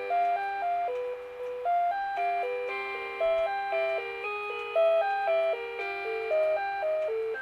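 Rhythm Clock 'Melody Box Eight' melody alarm clock playing one of its built-in classical tunes: a melody of short notes, about three a second, over held lower notes, in a richer voice than a plain electronic beep.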